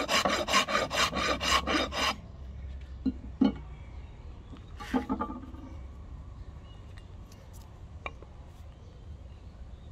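Fast, even strokes of a rasp or file across the ebony axe handle, about five a second, which stop suddenly about two seconds in. A few light knocks and clinks follow, around three and five seconds in.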